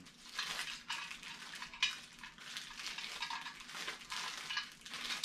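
A metal hip flask and its packaging being handled: steady rustling with many small clicks and light metallic scrapes.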